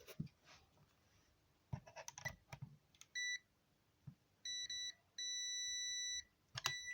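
Electronic beeper sounding: a short beep, then a couple of quick beeps, then one long beep of about a second, and a last short beep near the end. A few faint handling clicks come before the beeps.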